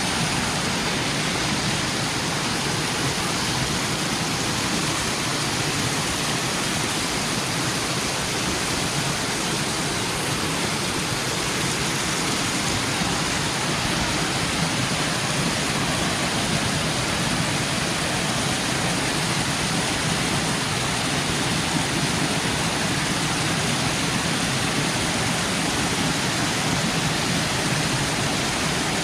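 Steady, loud rush of flowing water from a stream or waterfall.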